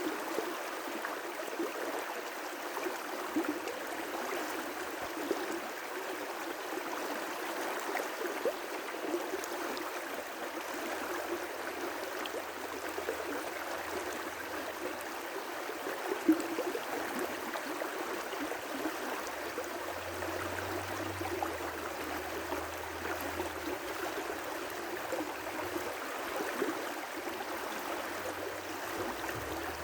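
River rapids: water rushing and splashing over rocks in a steady, even wash, with a slightly louder splash about sixteen seconds in.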